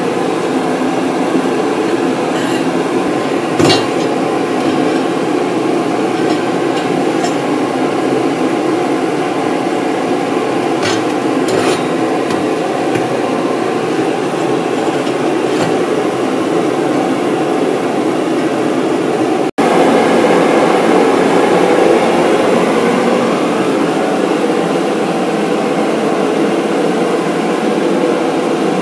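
Home-built turbocharger gas turbine engine running with a loud, steady roar. A few sharp knocks come through it, about four seconds in and again near the twelve-second mark.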